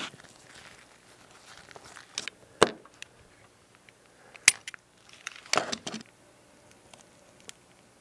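Hobby knife scraping and trimming a small plastic model-kit part: two sharp clicks a couple of seconds apart, then a scrape lasting about half a second.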